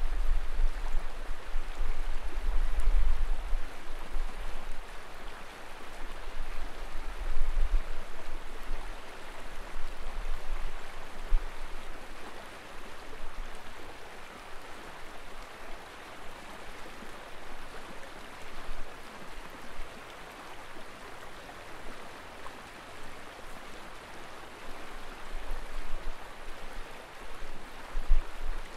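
Steady rush of flowing river water, with low wind buffeting on the microphone that comes and goes, strongest in the first few seconds and again near the end.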